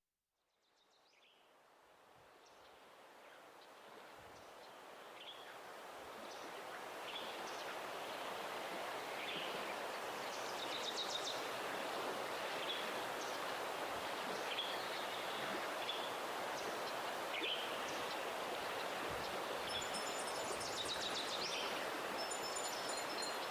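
Outdoor nature ambience fading in: a steady rushing noise like wind in leaves, with short bird chirps every second or two. High chime-like tones enter near the end.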